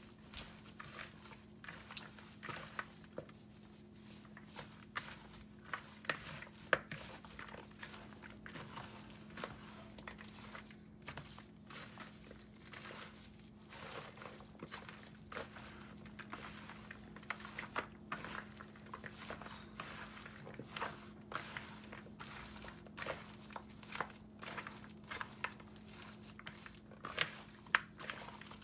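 Gloved hands mixing and rubbing seasoned raw goat meat with onions and herbs in a glass bowl: irregular soft squishing, clicks and rustles of the meat and plastic gloves, over a steady low hum.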